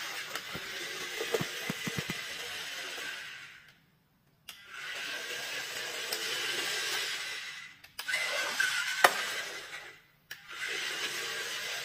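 Toy race car's plastic wheels rolling across a wooden floor, a steady whirring rush in several stretches of a few seconds broken by short silent gaps, with a sharp click about nine seconds in.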